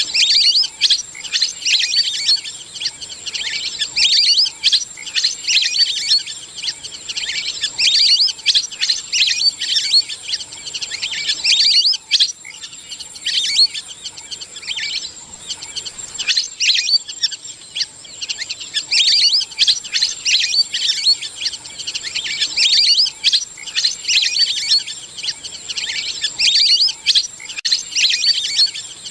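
Lesser whistling ducks giving their flock-gathering call: high whistled notes repeated quickly and overlapping, in runs broken by short pauses, over a steady thin high-pitched whine.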